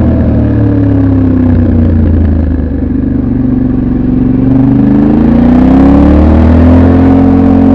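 Yamaha Ténéré 700 World Raid's 689 cc parallel-twin engine on its stock exhaust, heard on board while riding: the revs fall away over the first couple of seconds, then pick up again about two-thirds of the way through and hold steady.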